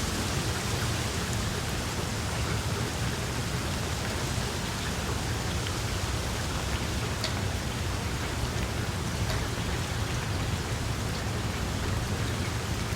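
Steady heavy rain falling on a surface, a dense hiss with a low rumble underneath and scattered individual drop ticks.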